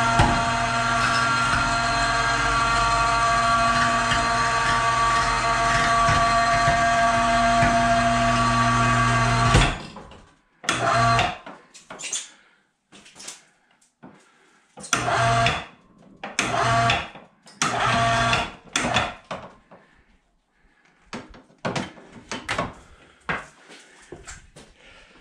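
Electric winch motor on a snowmobile storage lift, hoisting the lift arms. It runs steadily with a whine for about ten seconds and cuts off suddenly, then is bumped on and off in several short bursts.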